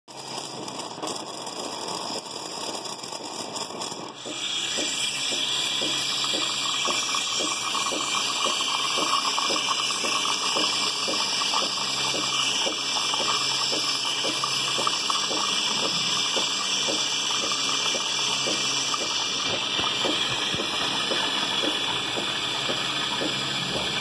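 Faber coffee machine brewing: about four seconds in, its pump starts and liquid rushes through steadily, with an even pulsing underneath.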